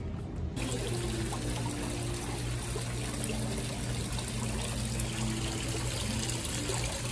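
Water splashing and trickling steadily from a small rock waterfall into a koi pond. It starts about half a second in.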